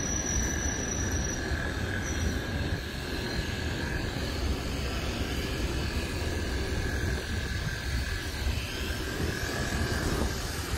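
Steady city street noise: a continuous low rumble of traffic and machinery with a faint, steady high whine over it.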